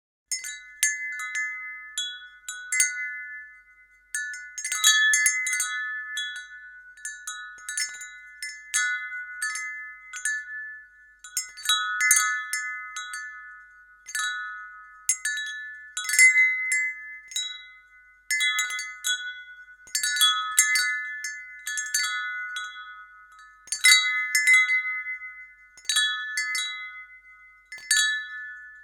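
Wind chime ringing, its four or five high notes struck in irregular clusters that swell and die away every couple of seconds.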